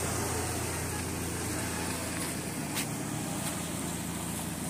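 Toyota Land Cruiser Prado engine idling steadily after a cold morning start, an even low hum, with a single brief click a little before three seconds in.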